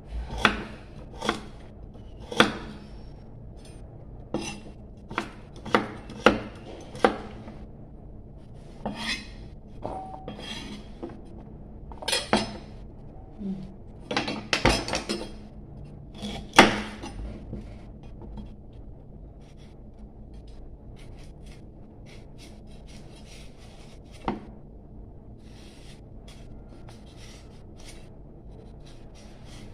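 Kitchen knife chopping carrots on a wooden chopping board: a dozen or so sharp, irregular knocks through the first half, then only faint scraping and ticks, with one more knock near the end, as the knife pares a chayote.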